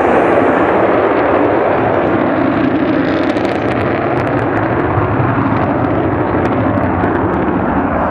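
Jet noise from the Avro Vulcan's four Rolls-Royce Olympus turbojets at high power as the bomber flies its display, loud and steady, easing slightly over the seconds.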